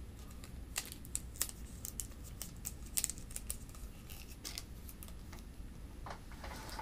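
Plastic drinking straws being handled and taped together on a desk: a scattered run of light clicks, crinkles and rustles.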